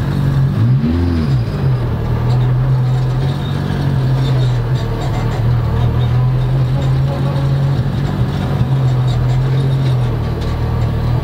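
Honda rally car's engine heard from inside the cabin, running at steady low revs as the car rolls along, with one brief rev up and back down about a second in.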